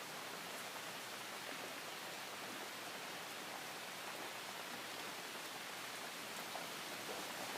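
Steady, soft rain: an even hiss of rainfall.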